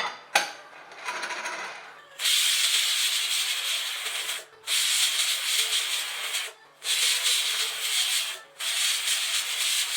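Pressure cooker whistling: four loud hissing blasts of steam from the weighted valve, each about two seconds long, one after another, the whistles that mark the cooking time. A click and a fainter hiss of steam come first.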